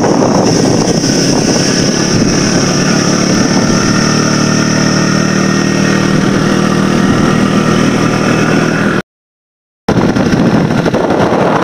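Small motorbike engine running steadily under way, with road and air rush. The sound drops out completely for under a second about nine seconds in.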